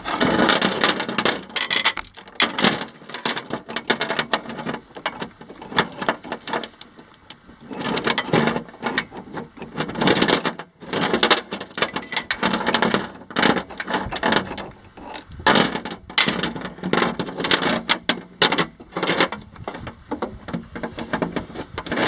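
Steel roller chains clinking and rattling against sprockets and the metal drive box as they are threaded on by hand, in irregular bursts with short pauses.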